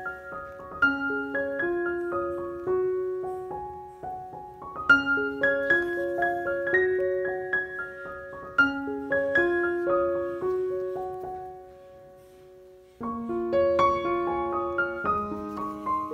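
Background piano music, a gentle melody of single struck notes; it fades out about eleven seconds in and starts up again a second or so later.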